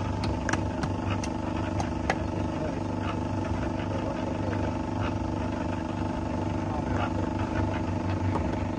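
A hammer tapping a hollow concrete block about six times in the first two seconds to bed it into the mortar, with a few lighter knocks later. A steady engine hum runs underneath throughout.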